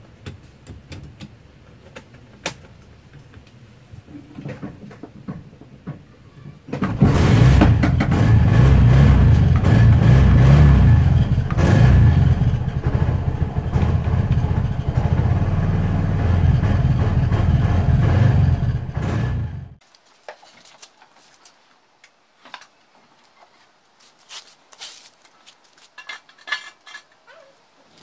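Bajaj RE 205 auto rickshaw's four-stroke engine, kick-started about seven seconds in after a few faint clicks and knocks, then running loud and steady for about twelve seconds before it cuts off suddenly, leaving only light clicks. It is started by kick lever because the faulty neutral switch prevents starting by self-start.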